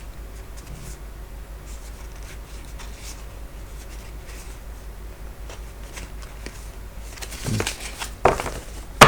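Tarot cards being handled and shuffled. Faint scattered ticks at first, then from about seven seconds in a run of louder card rustles and clicks, ending in a sharp snap.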